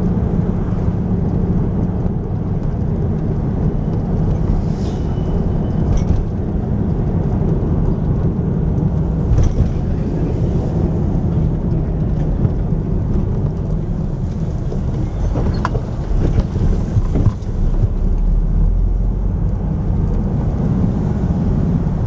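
Steady engine and road rumble heard from inside a moving 2002 Volkswagen Beetle (vocho), with its air-cooled flat-four engine, and a few light knocks from the car body, most of them past the middle.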